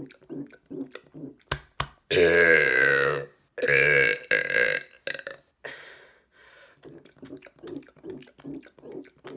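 A man's loud, deliberate burps: a long burp about two seconds in, followed straight away by a second one, each lasting about a second. Before and after them come short low sounds, repeated about three times a second, with a couple of sharp clicks just before the first burp.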